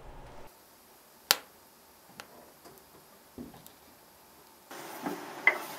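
Logs burning in a wood stove's firebox, crackling with a few sharp pops; the loudest pop comes about a second in.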